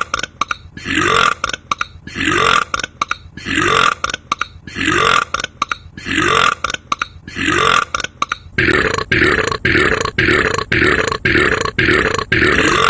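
A burp repeated at an even beat, about once a second, then speeding up to about two or three a second for the last four seconds; each burp rises a little in pitch.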